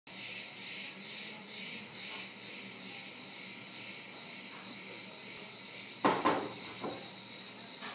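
Insects chirring in a high, steady drone that pulses about twice a second, with two brief louder sounds about six seconds in.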